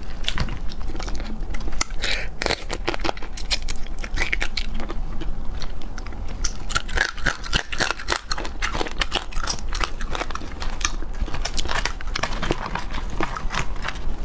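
Close-miked chewing of raw marinated small crabs eaten shell and all: the shells crack and crunch in quick, irregular clicks.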